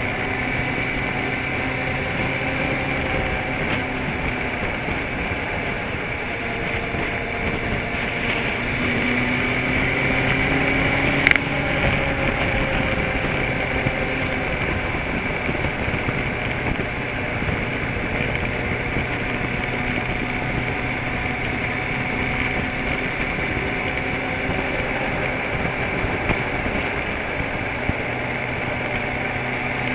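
Vehicle engine running while driving, with road noise; its pitch rises for a couple of seconds about ten seconds in and then settles. A single sharp click sounds about 11 seconds in.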